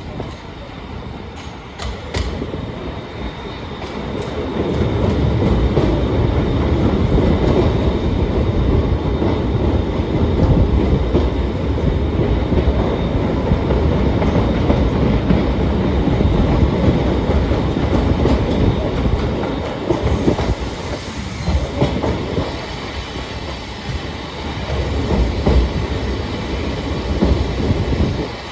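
Old-type passenger coach running along the line: the wheels rumble and clatter over the rail joints, growing louder about four seconds in and easing off briefly near the end. A short hiss comes about twenty seconds in.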